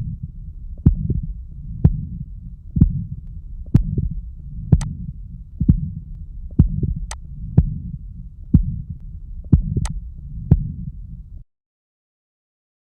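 Heartbeat of a heart with subaortic stenosis, beating about once a second with a low whooshing murmur filling the gaps between beats. The murmur comes from blood forced through the narrowed outflow just below the aortic valve. The sound cuts off abruptly about eleven seconds in.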